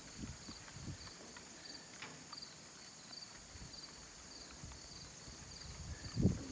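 Insect chirping steadily, a short pulsed chirp about every 0.7 seconds, over faint handling clicks and rustles from a metal push drill turned in the hand, with a soft thump near the end.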